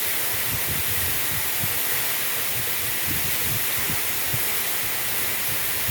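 Waterfall rushing as a steady hiss, with uneven low rumbles underneath.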